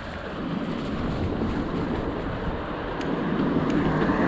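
Wind buffeting the action camera's microphone while riding a bicycle: a steady rush of noise, heaviest in the low end.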